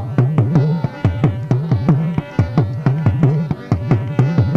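Instrumental break in a Gujarati dakla devotional song: a pitched folk drum played in a fast, driving rhythm, with faint steady tones underneath.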